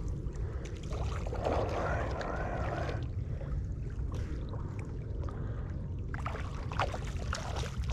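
Wind rumbling on the microphone, with water splashing in short, irregular bursts from about six seconds in as a small hooked bonefish thrashes at the surface in the shallows.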